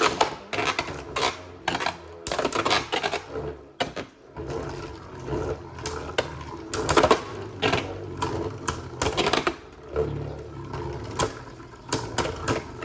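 Two Beyblade Burst tops spinning and colliding in a plastic stadium: rapid irregular clicks and clacks as they strike each other and the stadium walls, over a low spinning whir.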